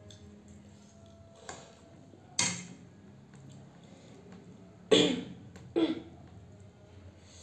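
A person coughing: three short, sharp coughs, one about two and a half seconds in, then two close together around five and six seconds in.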